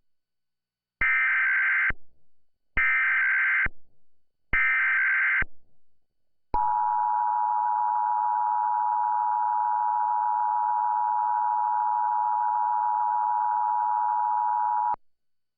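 Emergency Alert System signal: three short bursts of the SAME digital header, each under a second, then the two-tone attention signal held steady for about eight seconds before it cuts off. It opens a National Weather Service tornado warning broadcast.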